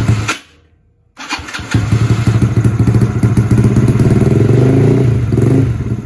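Automatic scooter engine with a Tekamoto tri-oval silencer, cold-starting with difficulty: a short burst of firing dies away within the first half second, then about a second in the engine catches and keeps running steadily at idle.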